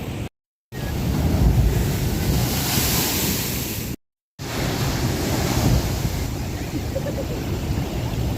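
Ocean surf rolling in and breaking on the shore, with heavy wind buffeting the microphone. It swells louder with a hissing wash about a second in, and the sound cuts out to silence twice for a moment.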